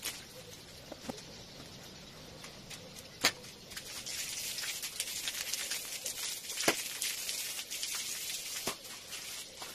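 A wet tiled floor being washed with a long-handled broom: a steady, splashy scrubbing hiss starts about four seconds in, with a few sharp knocks, the loudest about three and six and a half seconds in.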